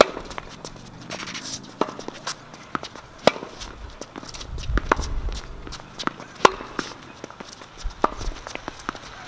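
Tennis rally on an outdoor hard court: sharp knocks of racket strikes on the ball and ball bounces, roughly one every second, with shoe steps on the court surface between them.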